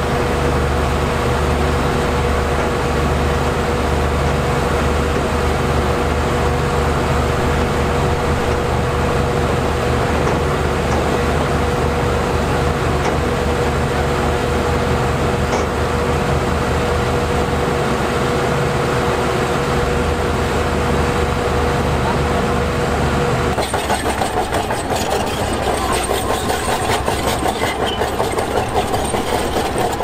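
Heavy diesel engine of construction machinery running steadily, with a steady whine over the engine note. About three-quarters of the way in the sound changes abruptly to a rapid clanking rattle.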